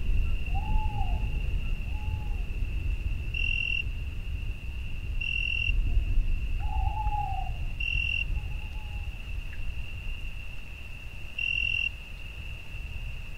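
Night-time nature ambience: crickets trilling steadily on one high note, with louder pulses every couple of seconds. An owl hoots twice about a second in and twice again near the middle, over a low rumble.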